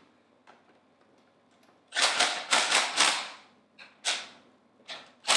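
Cordless impact driver hammering as it runs down the bolts on a diaphragm pump's head. After about two quiet seconds there is one burst of rapid impacts lasting about a second and a half, then shorter bursts near the end.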